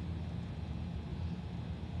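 Steady low background hum with a faint hiss, with no pops or clicks.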